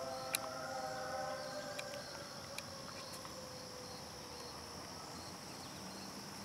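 Insects chirring steadily. The approaching Amtrak Downeaster's horn sounds faintly in the distance: a chord of several tones that slides slightly lower and dies away about two seconds in.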